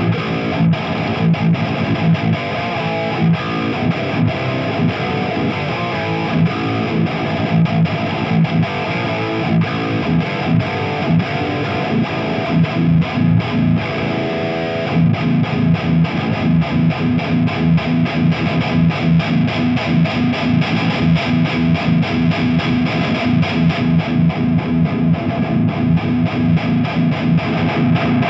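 Heavily distorted electric guitar played through a Mooer micro preamp pedal and a Harley Benton GPA-100 solid-state pedalboard power amp into a Marshall speaker cabinet, riffing heavy metal. From about halfway through, a fast, even rhythm of low notes takes over.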